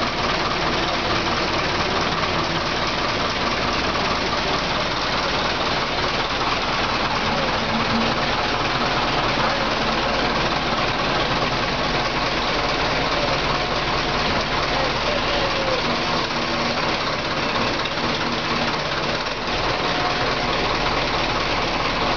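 Large forklift's engine running steadily at an even speed.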